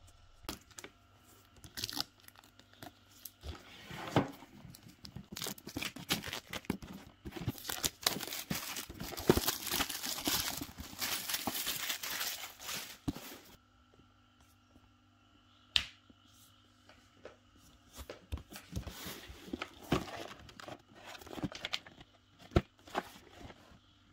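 Packaging being torn open and crinkled by hand, with scattered clicks and taps. A dense stretch of crackling and tearing runs through the middle, with sparser handling noise before and after.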